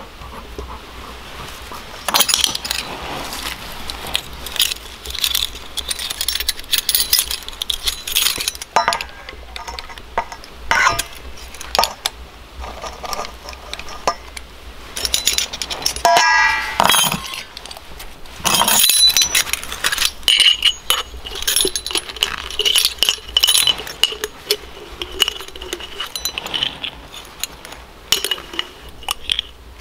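Metal measuring spoons and small glass spice jars clinking and tapping against a stainless steel mixing bowl as dry ingredients are measured out, with scattered clicks and scrapes. A short ringing note comes about sixteen seconds in.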